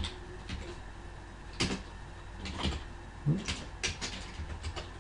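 Computer keyboard being typed on: a handful of separate, irregularly spaced keystroke clicks.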